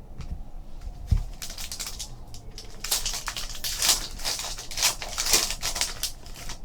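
A sealed trading-card pack being torn open by hand, its wrapper crackling and crinkling in quick irregular bursts. There is a dull knock about a second in.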